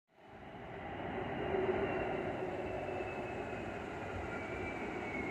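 A New York City subway train approaching along the track, a steady rumble of wheels on rails that grows louder over the first second or two, with a high whine that slowly falls in pitch.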